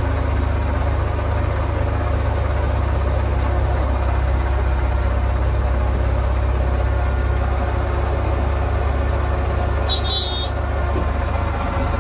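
Heavy truck engine idling steadily, a constant low rumble. There is a brief high-pitched chirp about ten seconds in.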